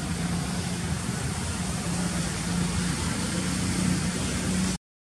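Steady low hum of an engine running nearby over a steady rush of background noise. The sound cuts off abruptly to silence just before the end.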